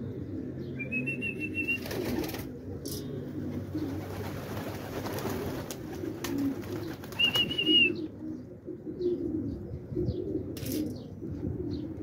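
A flock of domestic pigeons cooing steadily in a low pulsing murmur, with a few wing flaps as birds take off and land. Two short high warbling calls come through, about a second in and about seven seconds in.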